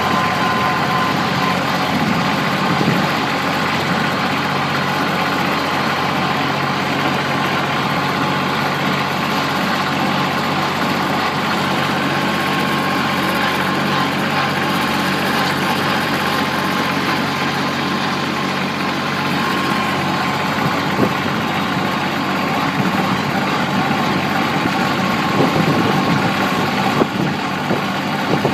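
Compact tractor's diesel engine running at a steady speed as the tractor drives through snow, with a few knocks and rattles near the end.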